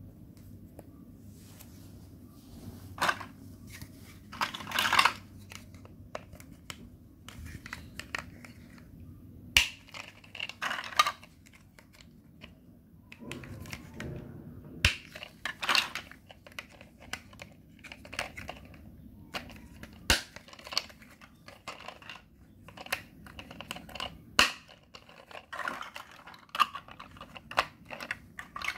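Large hollow plastic Mega Bloks building blocks clattering and clicking as they are handled and pressed together, with irregular sharp knocks throughout.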